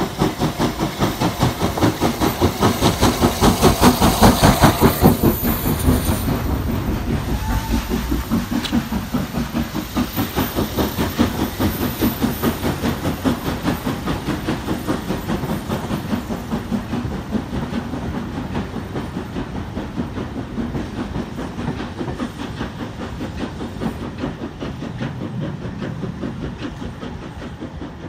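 Steam locomotive hauling a passenger train away from the station, its exhaust beating in a steady rhythm. About two seconds in, a loud hiss of steam joins it as the engine passes close by; after about six seconds the beats fade slowly as the train draws away.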